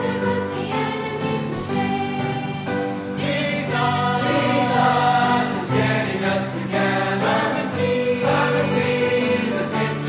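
A choir singing a hymn, several voices sounding together on held notes.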